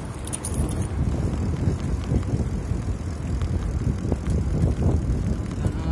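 Bicycle riding over paving: a steady low rumble of wind on the microphone and the tyres on the path, with a light metallic rattle in the first second.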